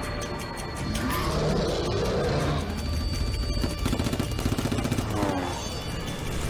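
Soundtrack of an animated Spitfire dogfight teaser: music over a low drone, with a burst of rapid gunfire about halfway through and a falling whistle near the end.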